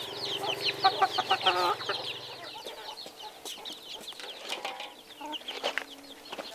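Free-range chickens clucking and calling, over a steady run of short, high, falling chirps.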